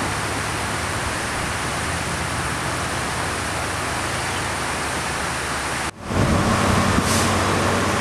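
Steady, even rush of a fast, flood-swollen river. About six seconds in it cuts off and gives way to louder noise with a low steady hum, typical of a motor vehicle running on the bridge close by.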